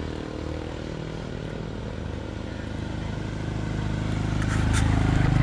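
A motor vehicle's engine running steadily, getting louder over the last couple of seconds.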